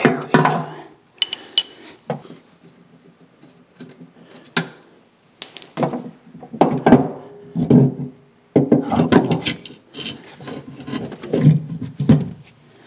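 A worn-out, crumbling drive wheel of an electric pallet truck being worked off its hub and out from under the jacked-up truck by hand: irregular clunks, knocks and scraping against metal and wood blocks.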